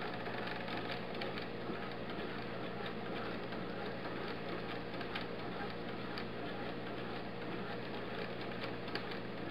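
Kinetic sculpture's mechanism running: a steady hum with a continuous stream of light ticks and clicks from its bent-wire gears meshing.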